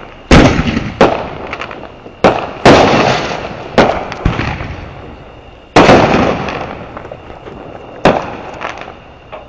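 Consumer fireworks going off: about seven loud bangs at uneven intervals, each dying away over a second or so.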